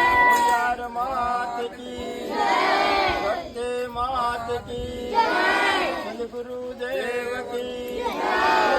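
A group of voices chanting or singing together in repeated phrases, swelling in unison about every two and a half seconds over a steady held note.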